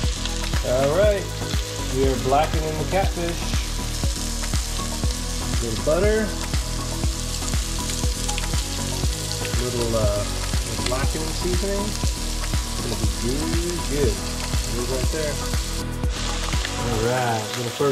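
Fish fillets frying in hot oil in a cast-iron Dutch oven: a steady sizzle. Background music with a steady beat runs underneath and drops out near the end.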